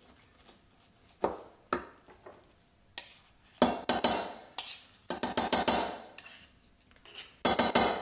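A table knife scraping dough from a wooden spatula and around a stainless steel mixing bowl. A few soft strokes come first, then three louder bouts of rapid metallic scraping and clatter in the second half.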